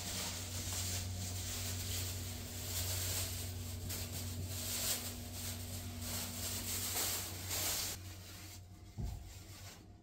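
Bathhouse ambience: a steady rushing hiss over a low hum, which drops away about eight seconds in, followed by a single thump about a second later.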